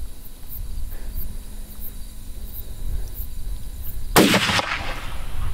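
A single gunshot about four seconds in, its report trailing off over about half a second: the shot that hits the whitetail buck.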